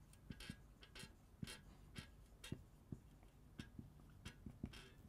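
Faint, irregular squeaks and taps of a marker pen writing letters on a whiteboard.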